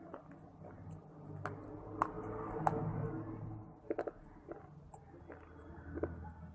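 A person chewing crunchy baked clay and shale pieces close to the microphone: irregular sharp crunches over softer mouth sounds, loudest about two to three seconds in.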